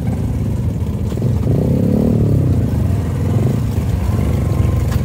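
Motorcycle engine running at low revs while riding down a rough dirt track. The revs rise and fall back briefly about a second and a half in.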